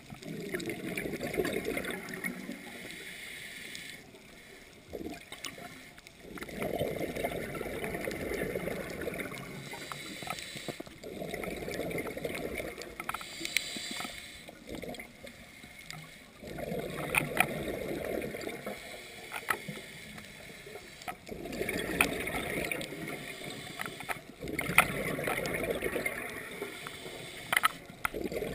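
Scuba diver's regulator breathing underwater: bursts of exhaled bubbles gurgling every five seconds or so, with quieter pauses between them and scattered faint clicks.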